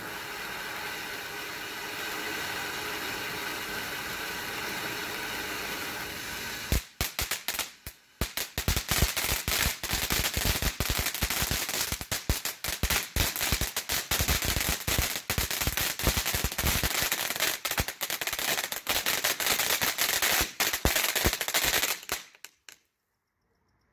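Sky Bacon Fireworks 'Temple of Fire' fountain firework burning: a steady rushing hiss for about seven seconds, then a dense, rapid crackling as the crackle effect kicks in. The crackling stops abruptly near the end as the fountain burns out.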